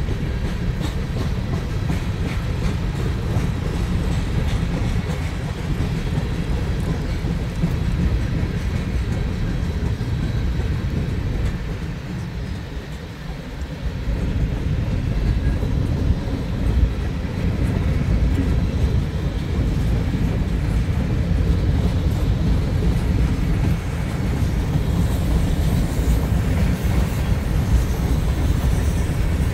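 Freight cars rolling past: a steady rumble of steel wheels on rail, with some clickety-clack. It eases briefly about twelve seconds in, then picks up again.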